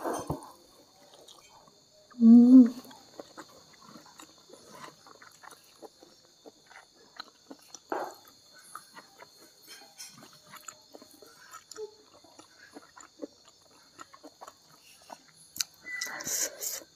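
Close-miked chewing and wet mouth sounds of a person eating rice and side dishes by hand: many small smacking clicks, with a short loud hum about two seconds in. A faint steady high-pitched whine sits underneath.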